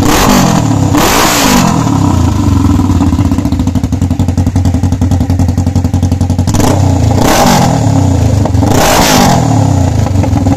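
Suzuki GS500 parallel-twin engine running on an open exhaust, blipped a few times and falling back to idle between revs. It gives a straight-pipe sound because the exhaust has no baffle mesh inside.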